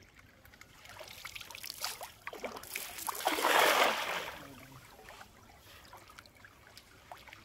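A cast net being thrown and landing flat on pond water, hitting the surface about three seconds in with a loud spattering splash that lasts about a second. Softer rustles and water splashes come before it, and dripping follows.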